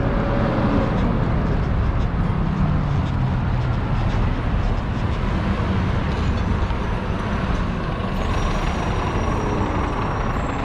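Road traffic on a busy city boulevard, with a double-decker bus driving past close by, its engine running.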